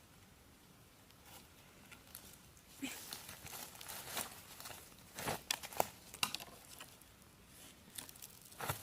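Irregular rustling and crinkling, with scattered short crackles starting about three seconds in.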